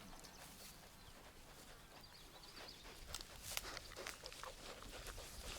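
Shetland sheep grazing close by: faint, irregular short crunches and rips of grass being bitten off and chewed.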